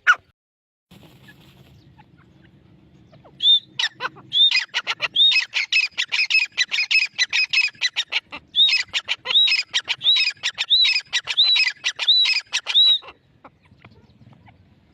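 A teetar (francolin) calling: a fast, chattering run of sharp notes mixed with arched whistled notes, starting about three and a half seconds in and stopping abruptly near the end. A brief sharp click right at the start, and a faint low hum under the first few seconds.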